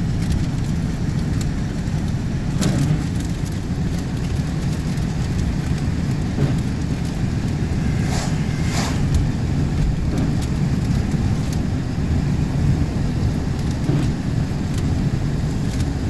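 Car driving, heard from inside the cabin as a steady low road rumble, with irregular sharp ticks of hail hitting the side window.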